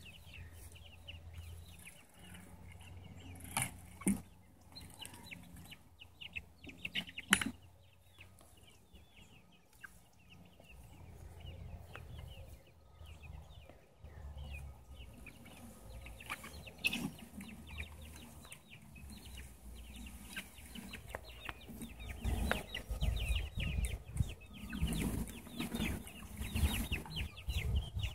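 A flock of young hens clucking and chattering softly. Two sharp knocks stand out in the first several seconds, and a low rumble builds in over the last several seconds.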